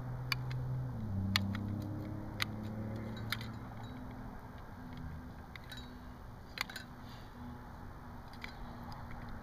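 A knife cutting up a block of Spam, with sharp clicks and taps of the blade every second or so, over a low steady hum.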